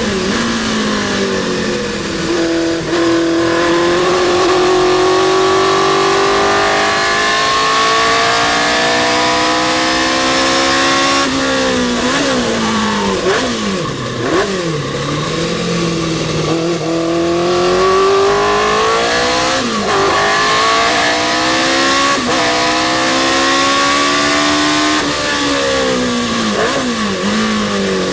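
Historic sports racing car's engine at race pace, revving up hard through the gears. Its pitch climbs, then falls away in a run of quick downshifts with throttle blips before pulling up again. More downshifts come near the end.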